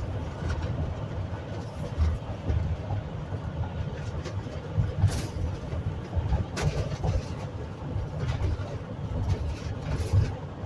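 Road and engine noise inside a moving RV: a steady low rumble, with a few short sharp clicks or rattles along the way.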